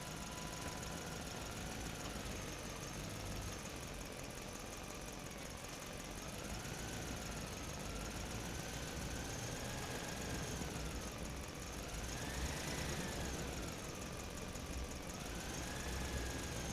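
A motor running steadily with a low rumble and a thin whine that slowly rises and falls in pitch.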